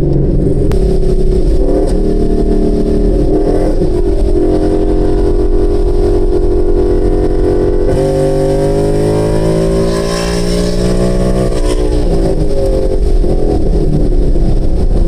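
2018 Ford Mustang GT's 5.0 Coyote V8 running through a free-flowing exhaust with Borla S-Type axle-back mufflers, pulling through the gears under throttle. The engine note shifts pitch in steps, then climbs strongly from about eight seconds in and eases off near twelve seconds.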